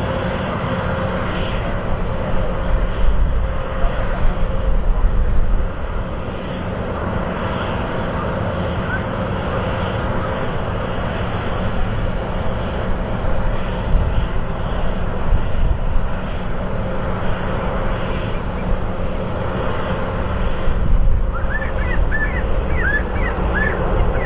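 Airbus A330-941's Rolls-Royce Trent 7000 jet engines running steadily as it lands and rolls out on the runway, with a louder low rumble a few seconds in. A few short bird chirps come near the end.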